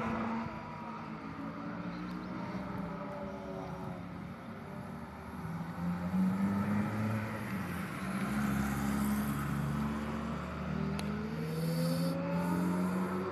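Sports car engines running on a race circuit, the cars out of sight at first. The engine note grows louder about five and a half seconds in, and near the end its pitch rises under acceleration as a car comes up the straight.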